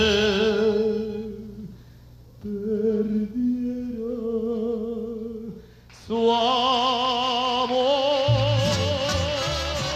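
Male ranchera singer with a heavy vibrato singing the last line of a slow mariachi song over sparse accompaniment, ending on a long held note. About eight seconds in, the mariachi band comes back in under the held note.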